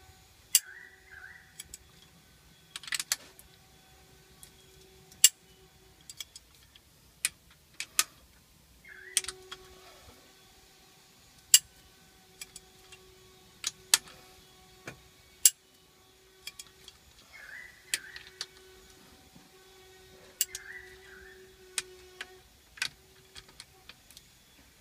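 Adjustable torque wrench tightening cylinder-head bolts to 70 Nm: sharp clicks every one to three seconds, with metal clinks as the socket is moved from bolt to bolt. A faint steady hum runs underneath.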